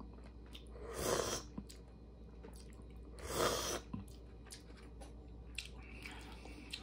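A person eating spicy pork bone soup with rice: soft chewing with small clicks, and two louder half-second breathy sounds, about a second in and about three and a half seconds in.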